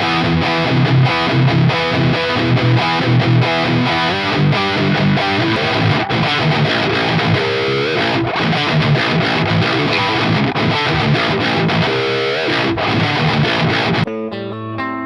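Electric guitar with a Vitus Raven passive humbucker playing a heavy high-gain distorted riff, with choppy rhythmic low notes and a couple of sliding, bending notes in the middle. About fourteen seconds in it switches suddenly to a clean tone with ringing single notes.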